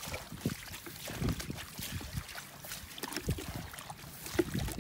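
Water trickling along a shallow channel across wet ground, with irregular soft thumps and splashes of barefoot steps in the mud.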